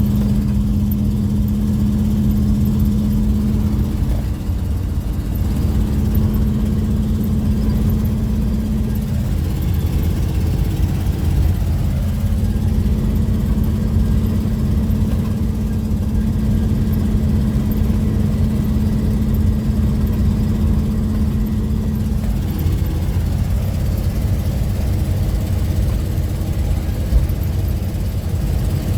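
Car cabin noise while driving: low engine and road rumble with a steady hum that shifts slightly in pitch a few times.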